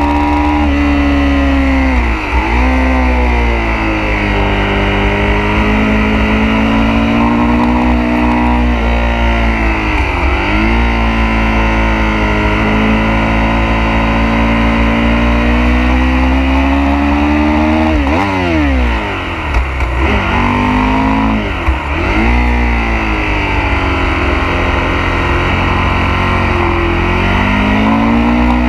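Sport motorcycle engine heard from onboard at racing speed, revs rising and falling with the throttle, with its pitch dropping sharply and climbing again several times, over wind noise.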